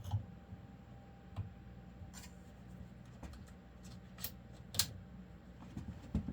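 Scattered light clicks and taps from handling a battery BB gun and its BB clips, about six at irregular spacing, over a low steady hum.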